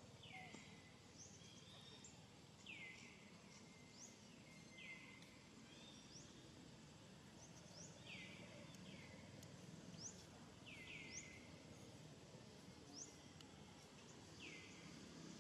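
Faint bird calls: a falling whistle repeated every couple of seconds, with short rising chirps higher up, over a quiet steady background.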